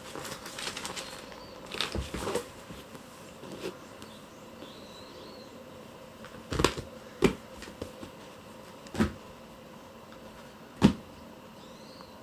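Kittens playing with a cat teaser toy: scattered soft knocks and taps as they pounce and land, about six in all, the loudest near the end.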